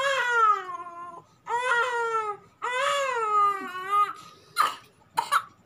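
Infant crying: three long wails of about a second each, then short gasping sobs near the end. The baby cries while being spoon-fed medicine.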